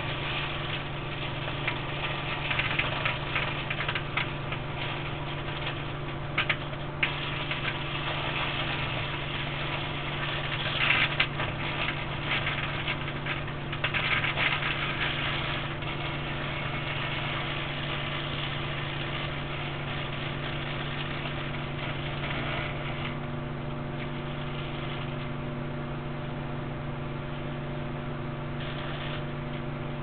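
High-voltage microwave apparatus humming steadily while a small plasma arc crackles, with a few sharp louder cracks. The crackling thins out in the second half, leaving mostly the steady hum.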